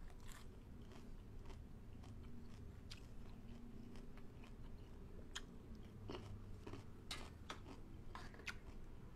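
Quiet close-up chewing of a mouthful of crisp lettuce and raw tiger prawn, with scattered wet crunches and mouth clicks; the bite is very crunchy.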